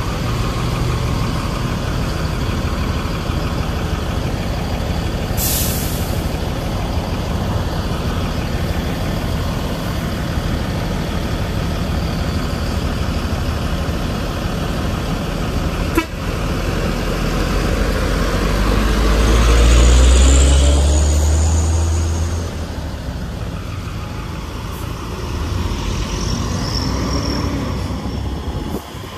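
Heavy diesel bus engine running close by on a narrow road. A short, sharp air-brake hiss comes about five seconds in, and the engine swells loudly as the bus works past about two-thirds of the way through.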